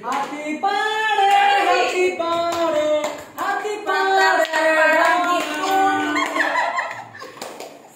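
A group of people singing a birthday song together, clapping their hands in time.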